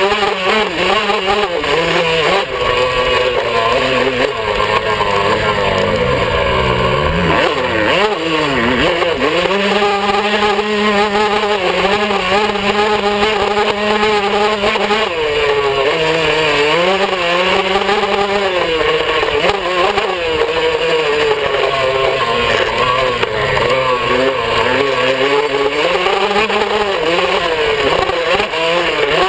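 Yamaha YZ125 two-stroke single-cylinder motocross engine running hard, revving up and dropping back over and over as the rider works the throttle and gears. Wind and rumble on the handlebar-mounted microphone run under it.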